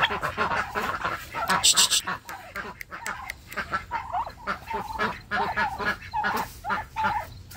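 Domestic white turkeys calling at close range: a quick run of many short, pitched calls with little pause between them. A brief loud rustle cuts in about two seconds in.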